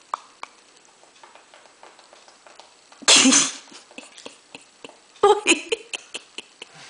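A 10-month-old baby making funny vocal noises: one loud, rough, cough-like sound about three seconds in, then a quick string of shorter bursts a couple of seconds later, with small clicks and quiet between.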